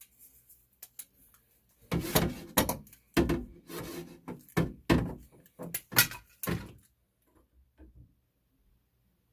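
Knocks, clatters and scrapes of hardware being handled, a dense run of them lasting about five seconds, starting about two seconds in.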